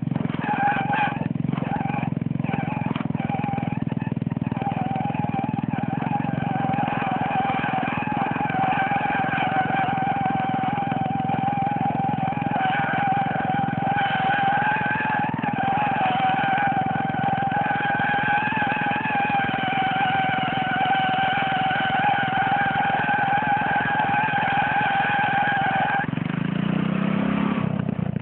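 Old riding lawnmower's engine held at a steady high speed while its tires spin against the ground to burn them. Near the end the engine is let off, and its pitch drops and winds down.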